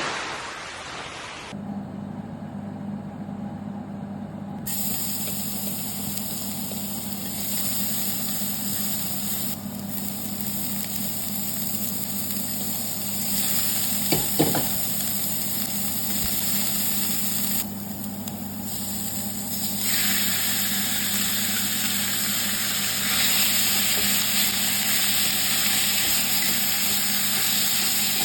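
Food sizzling in a hot pan, a steady hiss that grows louder in steps, over a constant low hum. A brief clink about halfway through.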